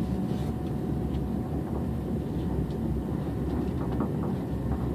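Inside an ICE high-speed train running at speed: a steady low rumble of wheels on rails, with faint scattered clicks.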